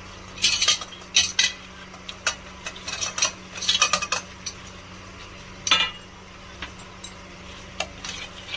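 A spoon clinking and scraping against a bowl in irregular knocks as soya chaap pieces go into a spiced curd marinade.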